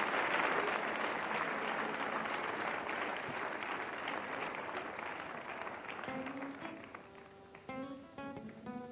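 Audience applause fading away over the first several seconds, then a cutaway nylon-string acoustic guitar picked note by note, starting about six seconds in.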